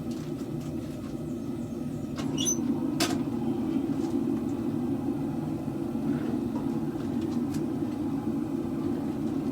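Steady low roar of forge equipment running, with one sharp click or knock about three seconds in.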